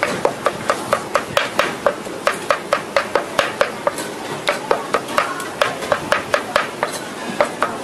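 Cleaver chopping rapidly on a round chopping block, mincing a pile of herbs and garlic: an even run of sharp knocks, about four to five a second.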